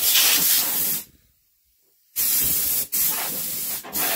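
Compressed-air blow gun hissing as it blasts dust and cobwebs off an engine's finned cylinder head. The air cuts off about a second in and comes back a second later, with two short breaks near the end.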